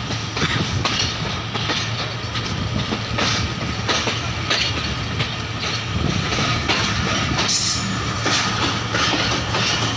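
Passenger train heard from aboard a carriage while under way: a steady low rumble of the running gear, with irregular wheel clicks over the rail joints about once or twice a second.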